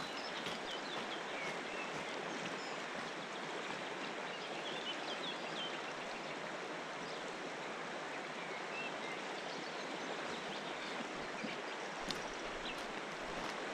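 River water flowing steadily, with a few faint bird chirps.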